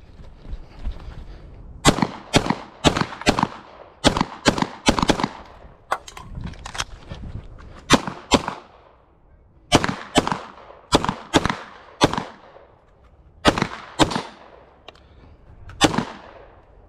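Rapid pistol fire from a CZ Shadow Target 2, mostly in quick pairs, in strings of two to eight shots separated by pauses of about one to two seconds. The last shot comes near the end.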